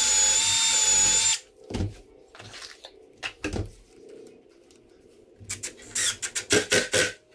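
Cordless drill running for about a second and a half as it drives a screw into the pine chair frame, then stopping. Near the end, a quick run of clicks and rattles as the bit in the drill's chuck is handled.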